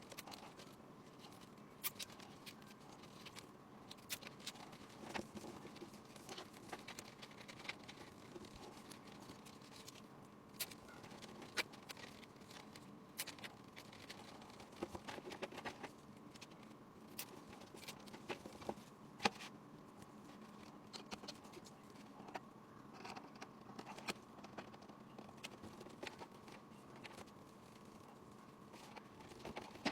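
Faint, irregular light clicks, taps and scratches scattered throughout, over a faint steady hum.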